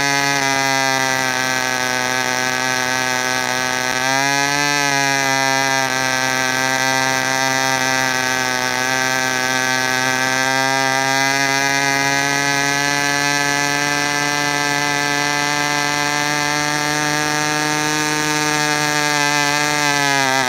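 New Super Tigre two-stroke glow engine for a control-line model airplane, running on a test stand with a steady note. Its speed sags and recovers briefly near the start and again about four seconds in. It holds steady after that and dies away at the very end.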